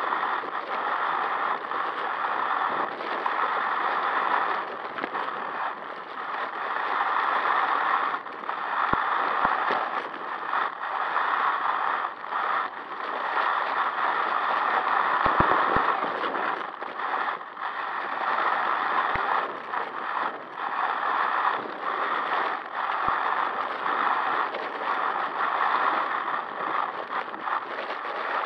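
Onboard sound of an HPI WR8 Flux electric RC rally car driving fast on gravel: a steady hiss and crunch from the tyres and drivetrain, easing off briefly every couple of seconds as the throttle lifts for corners, with a few short knocks about halfway through.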